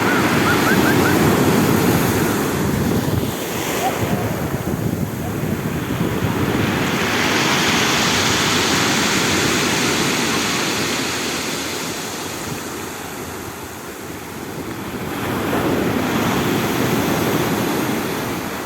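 Stormy Black Sea surf breaking and washing ashore, swelling up three times several seconds apart.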